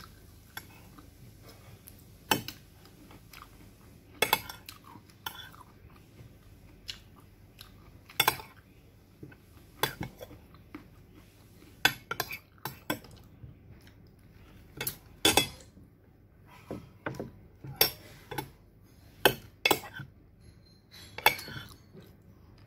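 Metal spoon clinking and scraping against a glass food container, in short sharp taps at irregular intervals as food is scooped out.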